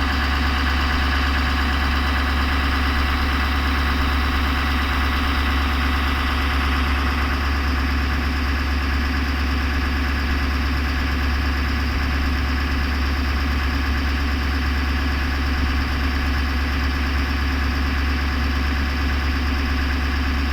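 Chevrolet Silverado Duramax diesel engine idling steadily with a strong low drone. It sounds nothing like a working Duramax, a sign that something is wrong with this engine.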